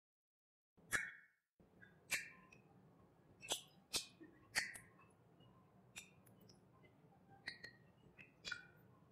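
Close-up wet chewing and lip smacking while eating curry-soaked chicken: about eight sharp, irregular smacks, starting after a moment of dead silence.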